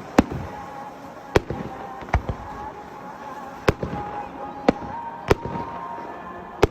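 Fireworks shells bursting: about seven sharp bangs at irregular gaps of roughly half a second to a second and a half.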